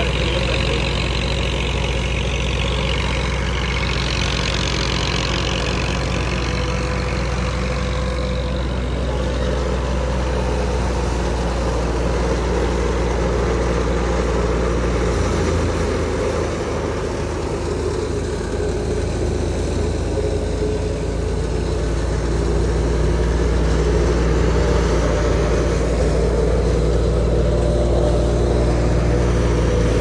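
Tractor-driven wheat thresher running steadily under load: the tractor engine's steady drone beneath the rushing whir of the thresher drum and fan as sheaves are fed in.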